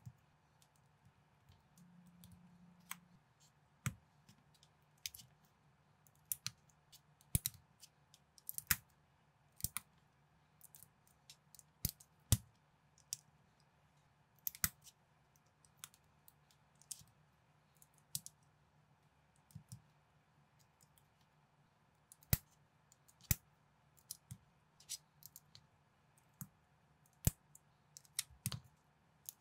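Plastic LEGO-compatible bricks being pressed and snapped together by hand, giving sharp, irregular clicks about one or two a second, sometimes several in quick succession.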